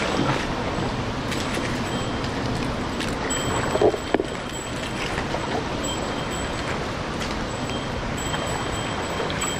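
Steady rush of a rocky mountain stream, with a couple of short knocks just before four seconds in. Faint thin high tones come and go over it from about three seconds on.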